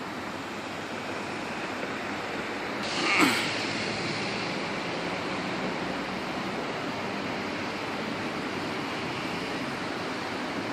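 Steady rushing noise of a train on the move, with one brief, sharp hiss about three seconds in.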